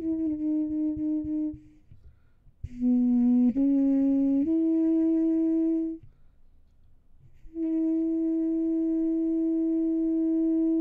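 Trumpet played through a Divitt practice mute, giving a soft, almost woodwind-like tone. A held note ends about a second and a half in; after a pause comes a short phrase that steps up twice in pitch, and after another pause a long steady note is held.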